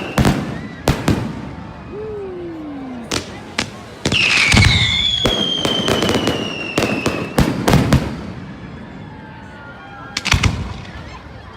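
Fireworks display: a rapid series of sharp bangs from bursting shells, mixed with whistling shells whose high whistles slide slowly downward in pitch. The bangs come thickest in the middle and again near the end.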